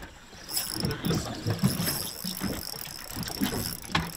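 Spinning reel being cranked as a hooked fish is reeled in on a hard-bent rod. The reel's gears give a steady high whir that starts about half a second in, over low rumbling noise.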